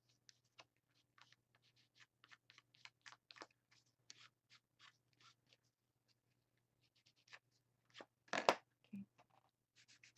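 Quick, faint scratchy strokes of an ink pad rubbed directly along the edge of a piece of paper to darken it, then a louder knock near the end as the ink pad is set down on the table.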